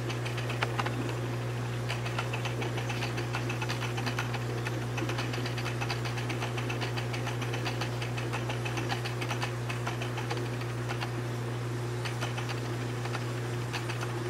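Steady low mechanical hum with a dense stream of irregular light clicks and ticks over it.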